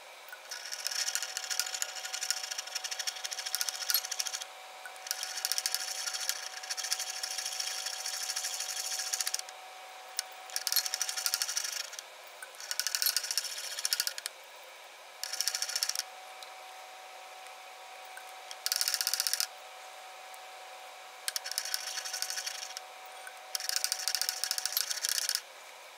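Glass Erlenmeyer flask being swirled on a hot plate, its base grinding and rattling against the plate's top in bursts of a few seconds with short pauses between.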